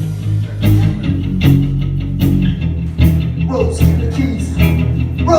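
Live rock band playing: bass and electric guitar over drums that hit about every three-quarters of a second in a steady beat.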